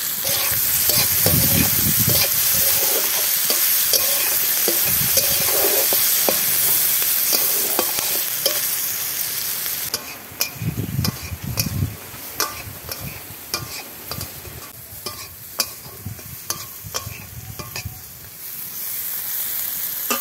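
Sliced onions, capsicum and chillies sizzling in oil in a metal kadai while a metal spatula stirs and scrapes them. The sizzle is steady for about the first half, then drops quieter, leaving many sharp clinks and scrapes of the spatula on the pan, and rises again near the end.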